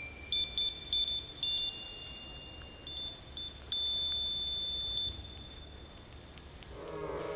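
Sparse electronic music of high, bell-like chime tones: single notes ring out one after another and overlap, with a brief sweeping swoosh near the end.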